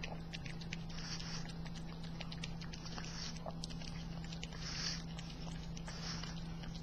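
A pug puppy licking and smacking whipped cream off a hand: a quick, irregular run of wet tongue-and-lip clicks, with a few short puffs of breath through the nose.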